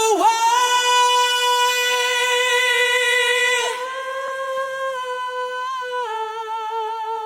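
A solo voice singing a cappella, holding one long sustained note that steps slightly lower about four seconds in and again about six seconds in, with a wavering vibrato near the end.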